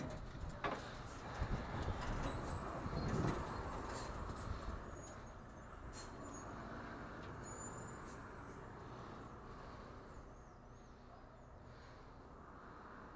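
Garbage truck running, with rattles and knocks over the first five seconds or so, then steadier and quieter.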